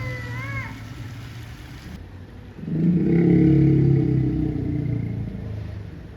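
Asian elephant growling: a deep rumble that sets in about two and a half seconds in, holds loud for a second or so, then fades out, like a motorbike engine.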